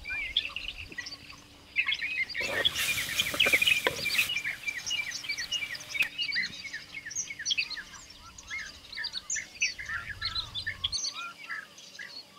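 Many small birds chirping and calling at once in a dense, overlapping chorus, with a burst of rushing hiss about two to four seconds in.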